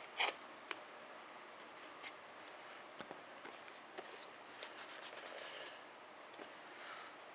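Hands opening a cardboard tablet box: a sharp snap about a quarter second in as a seal sticker gives way, then scattered light clicks and scrapes of fingers on the cardboard. A soft sliding rustle comes later as the printed outer sleeve is pulled off the inner box.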